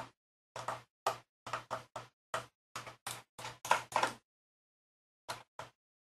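Short, sharp clicks and scrapes from a small Phillips screwdriver working a tiny screw out of a MacBook Pro's memory access panel, irregular, about a dozen in the first four seconds, then two more near the end. Each is cut off abruptly, with dead silence between.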